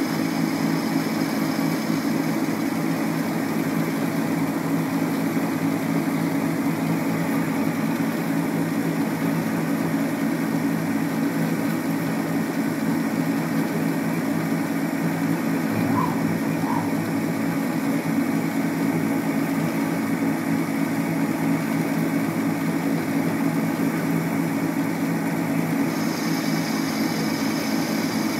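Homemade CNC lathe running, its spindle motor and chuck turning steadily with a constant hum. A faint higher whine comes in again near the end.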